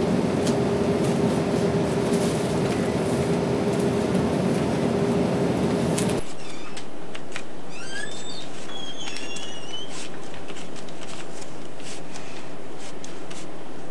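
Shop room tone: a steady hum over background noise that cuts off about six seconds in, giving way to a quieter background with a few faint high chirps and light clicks.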